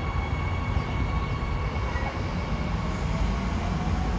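Seoul Subway Line 2 electric train departing the platform: a steady low rumble with a high electric motor whine made of several steady tones that fade, and a faint tone rising slightly in pitch in the second half as it pulls away.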